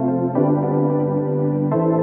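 Ambient background music of held chords, shifting to a new chord twice.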